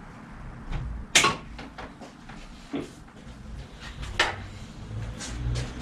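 Sharp knocks and clicks of things being handled and set down in a bicycle workshop, the two loudest about a second in and about four seconds in.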